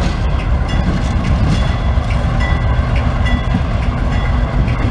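Norfolk Southern GE B32-8 four-axle diesel locomotive running loud and close as it rolls past on yard track, its engine rumble mixed with the sound of its wheels on the rails.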